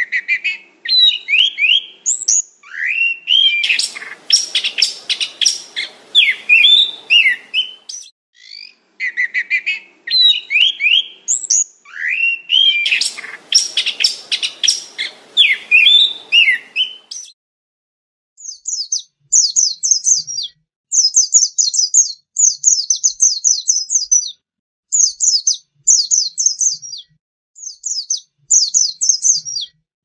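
Chestnut-capped thrush singing a varied song of rich whistled phrases with a dense scratchy passage; the same stretch of song is heard twice. About seventeen seconds in it gives way to a white-eye's rapid, high twittering trills in short bursts.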